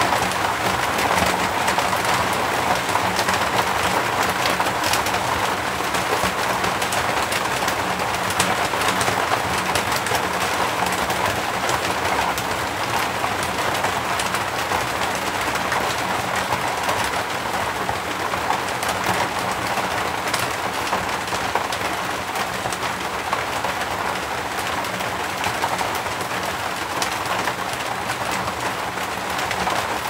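Rain falling on an asbestos-cement (fibre-cement) roof, heard from inside beneath it: a steady, dense patter of drops that keeps up without a break.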